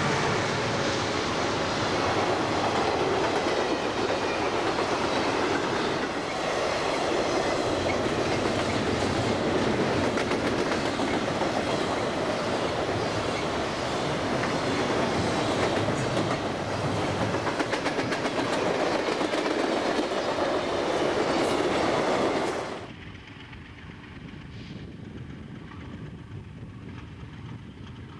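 Freight train rolling past close by, its steel wheels running loudly on the rails. The sound cuts off abruptly about 22 seconds in, leaving a much quieter background.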